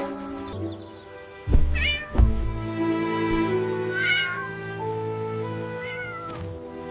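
A cat meows three times over background music, each meow bending in pitch. Two loud, low thuds come about a second and a half and two seconds in.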